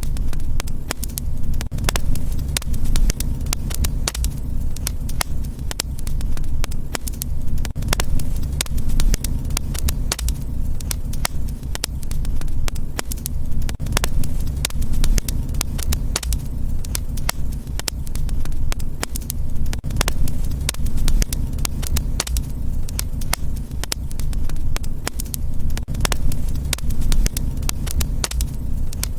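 Wood fire crackling: frequent irregular sharp pops and snaps over a steady low rumble of flame.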